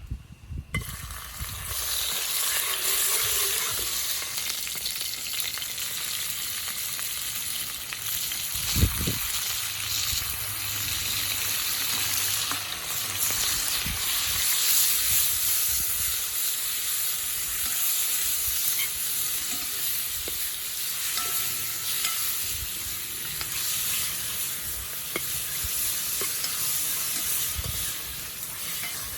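Food sizzling as it is stir-fried in a hot pan, a steady frying hiss that starts about a second in, with a single thump about nine seconds in.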